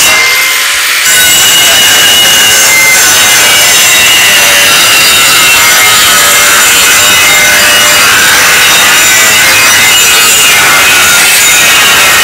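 Corded angle grinder with a cut-off disc cutting through an aluminum loading ramp: loud and steady, easing off briefly about half a second in before the disc bites again.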